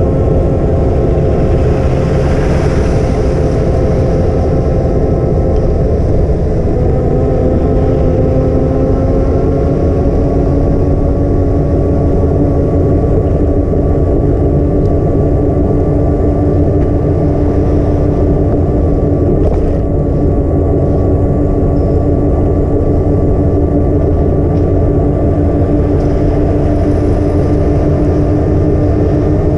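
Lawn care truck's machinery running with a loud, steady drone, its pitch stepping up slightly about six seconds in. A hiss swells and fades two to three seconds in, and a single sharp click comes about two-thirds of the way through.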